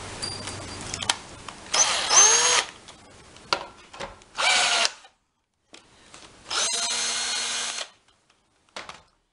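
18V cordless drill driving a rivet-gun adapter to set blind rivets: the motor runs in three short bursts of about a second or less each, with sharp clicks from the tool and rivets in between.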